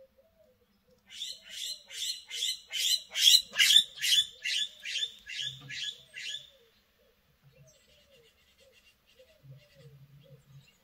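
A rapid series of about fourteen short, high-pitched animal squeaks, about two and a half a second, growing louder and then fading away; fainter low short calls recur throughout.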